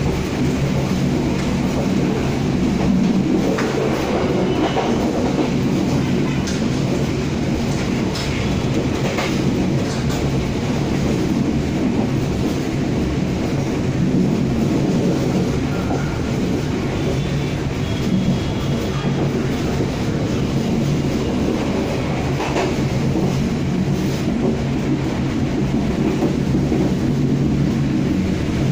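Commuter train running along the track, heard from its rear cab. There is a steady rumble of wheels on rail with a low hum beneath it, and a few faint scattered clicks.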